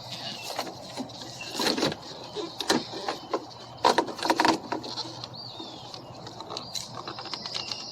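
Irregular knocks, clicks and rubbing as the rubber door weather stripping is worked up over the sheet-metal edge of a car door's inner panel.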